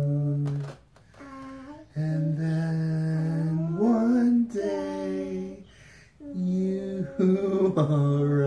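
A man singing a slow lullaby in a low voice, long held notes in phrases with short breaths between, his voice roughened by allergies. A brief higher, rising voice comes in about halfway through.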